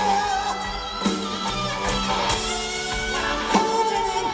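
Live rock band playing: an electric guitar lead holds long, wavering notes over drum hits that come about every second and a bit.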